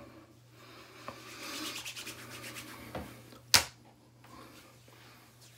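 Hands rubbing face lotion between the palms and onto the skin, a quick run of rubbing strokes, then one sharp slap about three and a half seconds in as both hands are clapped onto the cheeks.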